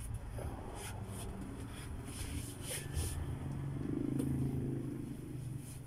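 A motor vehicle engine running steadily with a low hum, louder for a moment about four seconds in, with a few faint light clicks and rubs.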